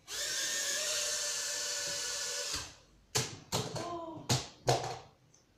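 Small toy quadcopter drone's four little motors and propellers whirring at a steady pitch for about two and a half seconds, then winding down and stopping. A few sharp knocks and clatters follow.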